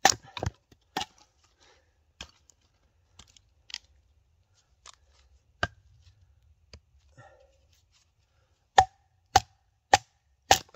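Batoning: a wooden baton striking the spine of a thick D2-steel machete, the Odenwolf W, driving it through dry aspen firewood. Three sharp knocks in the first second, a few lighter knocks and small cracks of splitting wood in the middle, then four hard strikes about half a second apart near the end, each with a brief ring.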